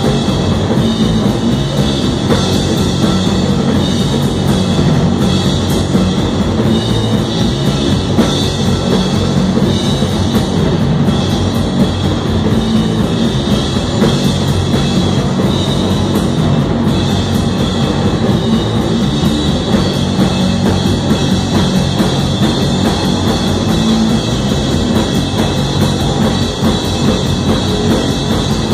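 A heavy rock band playing live: a drum kit and a distorted electric guitar, loud and steady without a break.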